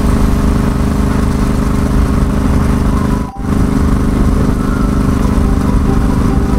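Yamaha XSR700's parallel-twin engine running at a steady cruise, with a constant engine drone and a brief dropout a little past halfway where the recording is cut.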